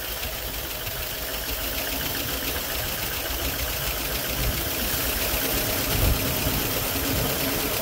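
Carbureted Ford engine of a Mercury Monarch running on its own just after reviving from about 20 years of sitting, held at a fast idle by hand at the carburetor throttle linkage. It has a busy ticking from a lot of valve train noise, and it gets slightly louder as it goes.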